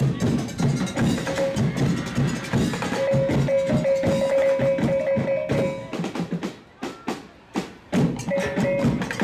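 Percussion-driven dance music: fast drum and wood-block beats, with a long held note about three seconds in. The beat thins out and drops quieter for a moment past the middle, then comes back in full near the end.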